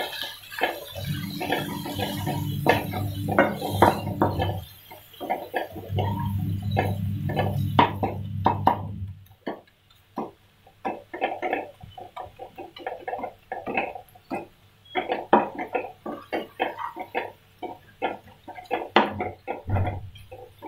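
Wooden spatula scraping and knocking against a nonstick kadhai while stirring a thick frying masala, a quick irregular run of clicks and scrapes. A low steady hum sounds under it twice in the first half and stops about nine seconds in.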